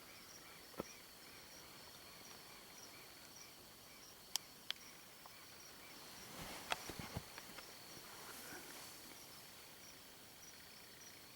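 Faint night chorus of insects: a steady high trill with rhythmic pulsing chirps. A few sharp soft clicks are heard, and a short burst of clicks and rustling comes about seven seconds in.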